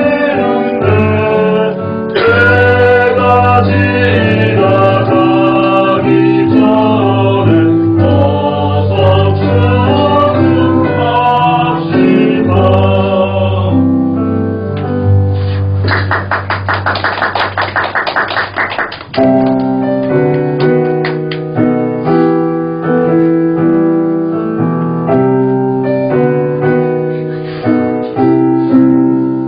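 Church choir singing a Korean harvest hymn with piano and keyboard accompaniment. Past the middle the voices give way to a fast repeated-note keyboard passage of about three seconds, then chords that die away.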